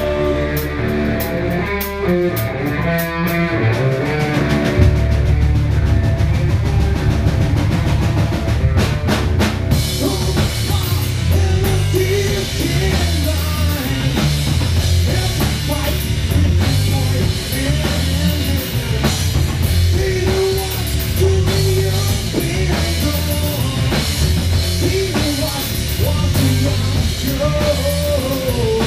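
Rock band playing live, drum kit and guitar. Held chords with quick drum hits open it, and the full band comes in about four seconds in with a steady driving beat.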